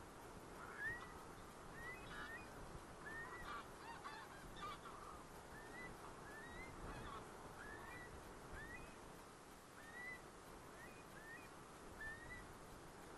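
Faint calls of geese over a steady background hiss. The short rising notes repeat about once a second and overlap thickly in the first few seconds, then thin out to single calls.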